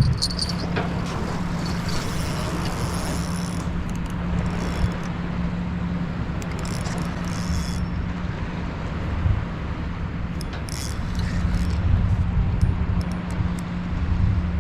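A steady low mechanical hum, with a low rumble of wind on the microphone.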